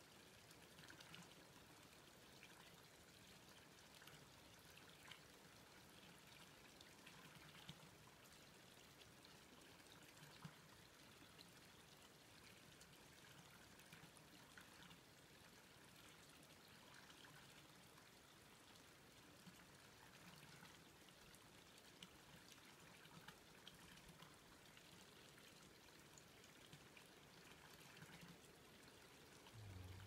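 Near silence: faint forest ambience, a steady soft hiss with a few small ticks. A low hum comes in right at the end.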